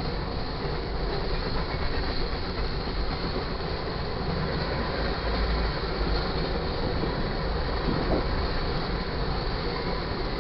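Freight cars of a manifest train rolling past: a steady rumble of steel wheels on the rails.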